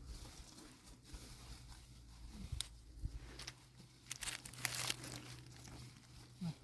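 Rustling and crinkling, like material being handled or torn, with a few sharp knocks and a longer rustle about four to five seconds in.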